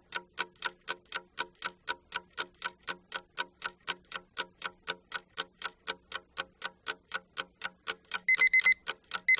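Countdown timer sound effect: a clock ticking evenly, about four ticks a second, with two short bursts of rapid high beeping near the end as the time runs out.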